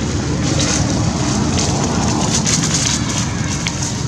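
Dry fallen leaves crackling and rustling in short, irregular bursts as young monkeys wrestle on them. Under it runs a steady low rumble, like an engine running.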